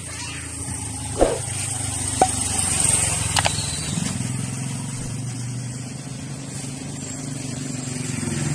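Motorcycle engine running low and steady at slow speed, with a couple of sharp clicks in the first few seconds; it grows louder near the end.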